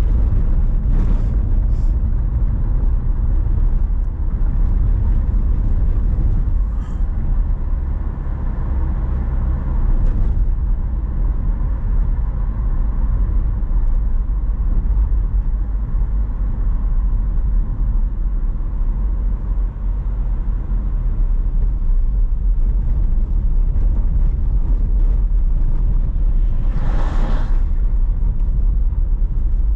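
Steady low rumble of a car driving along a road, with a brief louder rush of noise near the end.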